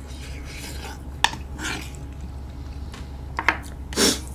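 Wooden spoon and chopsticks knocking and scraping against earthenware stew pots, with a few sharp clicks about a second in and again near the end, over soft eating noises.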